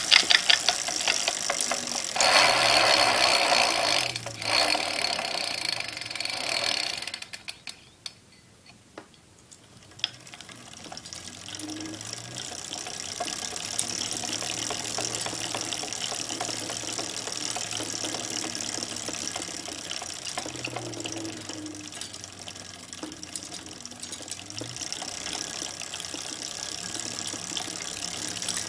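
A2B Metro G2 electric bike being pedaled, its drivetrain giving a loose rattling and clicking over a low steady hum. There is a louder stretch in the first few seconds and a lull with a few clicks about eight seconds in. The noise comes only when pedaling; the owner suspects the stock 7-speed 11-28T freewheel, which may be under-lubricated.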